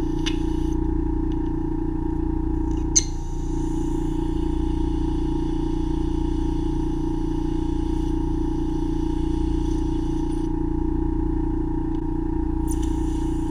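Ear-wax microsuction machine running with a steady hum and a faint high hiss from the suction tip. There are sharp clicks just after the start and about three seconds in, and the hiss drops away for a couple of seconds near the end.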